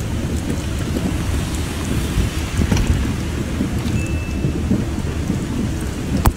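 Storm noise: heavy rain with a continuous, uneven low rumble. There is a brief thin whistle about four seconds in and a sharp click near the end.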